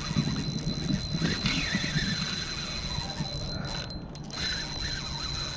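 Spinning reel's drag squealing as a large ray runs off with line, over gusty wind on the microphone.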